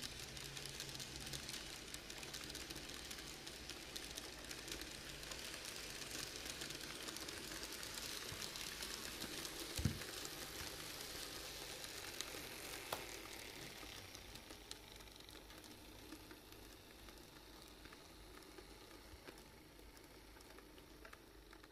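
N-gauge model freight train rolling along sectional track: a steady rolling hiss with many fine clicks of small metal wheels over the rail joints. It fades after about fourteen seconds as the train moves off, with one sharper click about ten seconds in.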